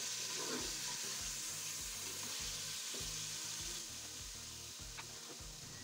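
Raw chicken pieces sizzling as they fry in hot oil with whole spices in a metal pot, turned with a spatula at first. The sizzle is a steady hiss that gets a little quieter after about four seconds.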